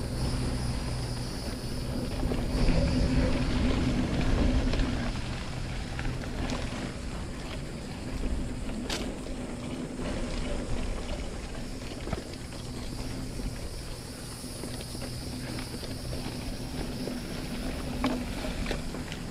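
Santa Cruz Chameleon hardtail mountain bike riding a dirt singletrack: steady tyre and drivetrain noise with wind on the microphone, loudest a few seconds in. A few sharp rattles and knocks from the bike over bumps, one near the middle and one near the end.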